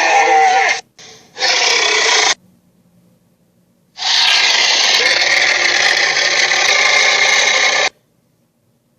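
Dragon roar sound effects: a harsh, raspy roar cuts off a little under a second in, a short burst follows about a second later, and a longer harsh roar runs from about four seconds in to near eight seconds in.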